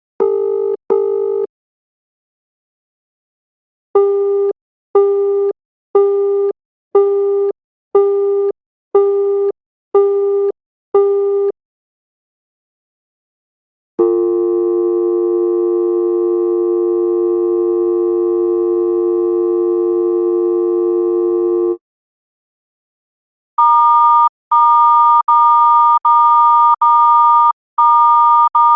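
A run of telephone line tones. First comes a pulsing busy-signal beep, about one short beep a second, eight times. Then a steady dial tone holds for about eight seconds and cuts off. Near the end a higher-pitched tone starts, stuttering on and off.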